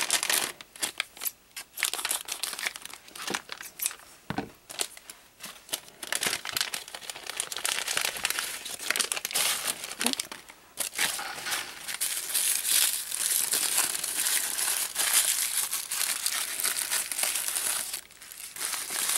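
Scissors snipping a plastic blind bag open, a few sharp cuts at first, then long crinkling and rustling as the bag is torn open by hand and the tissue-paper wrapping is pulled out.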